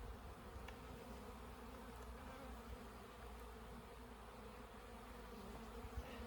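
Honeybees humming around an opened hive: a faint, steady buzz of many bees.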